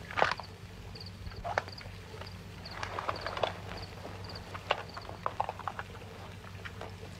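Scattered light knocks, clicks and clothing rustle from fumbling in a coat and handling small valuables, over the steady low hum and hiss of an old film soundtrack.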